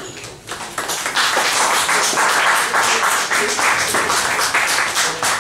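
Audience applauding, the clapping swelling about a second in.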